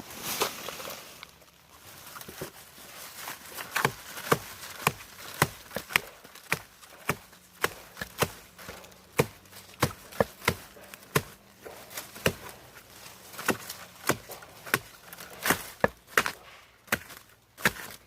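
Repeated chopping with a blade, sharp blows coming irregularly about twice a second, after a brief rustle at the start.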